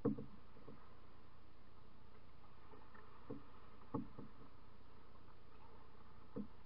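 Canoe being paddled with a wooden single-blade paddle over a steady low background: a few short, soft knocks from the strokes, the loudest right at the start.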